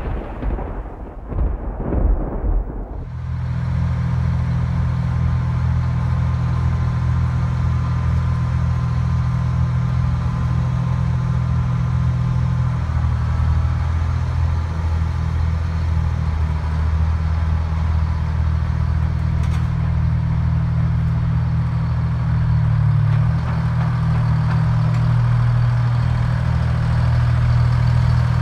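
A few seconds of rumbling noise over the opening, then the diesel engine of a Link-Belt LS-78 crawler crane running steadily and heavily under load as the machine tracks onto a lowboy trailer, growing slightly louder near the end.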